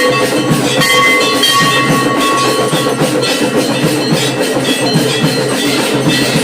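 Temple bells ringing continuously together with drums beaten in a steady rhythm, a dense, loud din like a Hindu aarti to Shiva.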